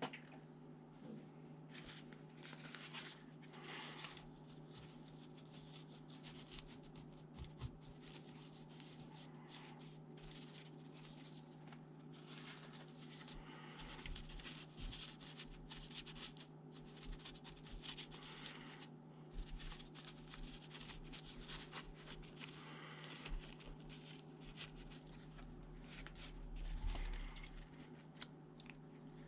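Small hand-work noises on laptop parts: light scraping and rubbing with scattered clicks, over a steady low electrical hum. A slightly louder rubbing patch comes near the end.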